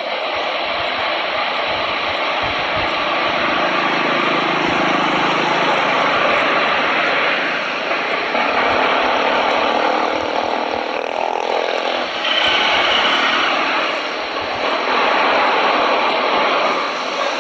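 Jet engines of an Airbus A330 airliner running as it moves along the runway: a steady, even rush of noise with no clear pitch.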